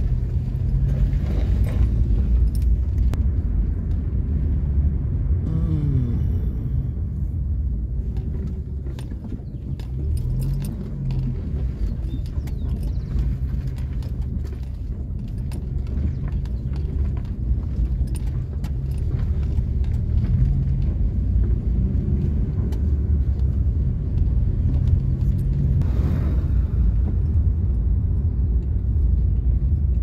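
Car driving along a rough, potholed road, heard from inside the cabin: steady engine and tyre rumble with frequent small rattles and knocks as the car goes over the broken surface.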